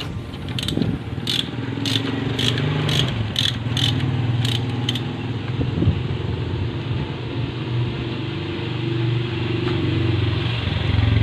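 A ratchet tool clicking about twice a second for the first five seconds, over the steady low hum of a vehicle engine running, which grows a little louder near the end.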